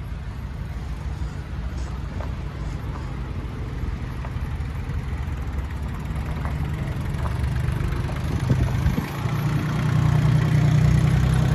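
Tractor engine running, growing steadily louder, with a step up in level about ten seconds in.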